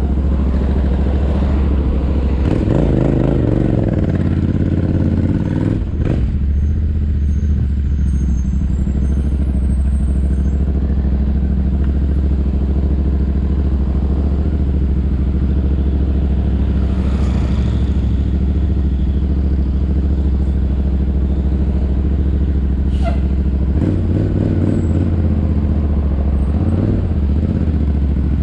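Royal Enfield Interceptor 650's parallel-twin engine running through an aftermarket JVK exhaust, a steady low exhaust note, with the engine speed changing about three seconds in and again near the end. Picked up by the GoPro's built-in microphone.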